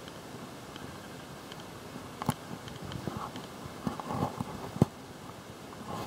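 Footsteps on hard stone paving: a handful of sharp, irregular knocks starting about two seconds in, over steady background noise.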